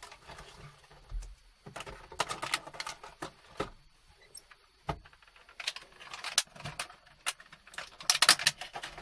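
Kitchen utensil clicking, tapping and scraping in a bowl in uneven bursts of rapid ticks, as potato pancake batter is mixed from a packet mix with water and egg.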